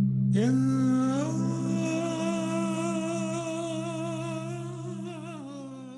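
Music: a man's voice holding one long hummed or sung note over a steady low drone, sliding up into the note within the first second and wavering with vibrato near the end.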